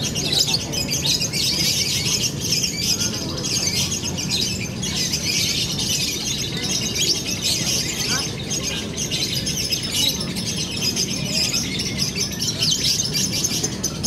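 Fischer's lovebirds singing: a long, unbroken run of rapid, high-pitched chirps and trills, the kind of extended song judged in lovebird singing contests, over a low steady background hum.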